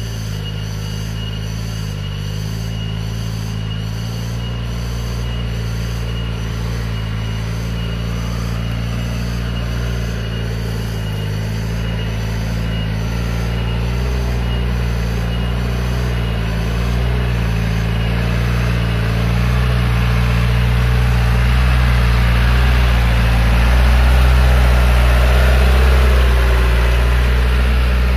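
Engine of a modified 1980s Hardtop jeep running steadily, growing gradually louder and peaking near the end.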